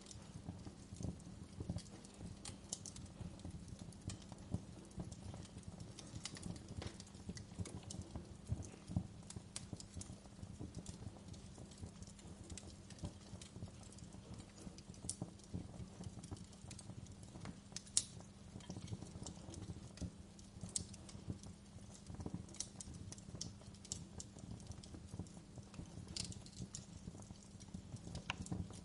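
Wood fire crackling in a fireplace: irregular sharp pops and snaps over a low steady rumble, with one louder pop about halfway through.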